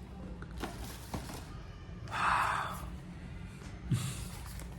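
Retail packaging of a wireless microphone kit being handled as the inner contents are eased out of the box: a few light taps and clicks, with a short rush of sliding friction noise about halfway through.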